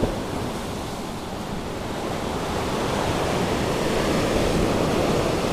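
Sea surf breaking and washing over the rocks below a cliff, a steady rushing wash that grows gradually louder over the second half.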